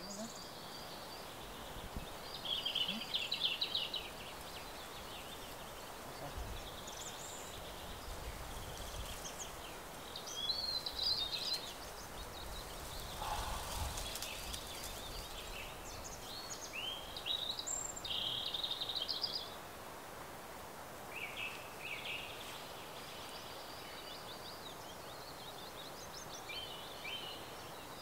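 Songbirds singing in spring woodland: short, quick phrases every few seconds over a steady background hiss.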